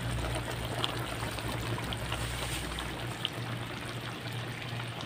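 Chicken tinola soup simmering in a wok on a gas stove: a steady bubbling hiss with a few small pops, over a low steady hum.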